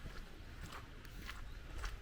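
Walking footsteps on wet pavement, about two steps a second, over a steady low rumble.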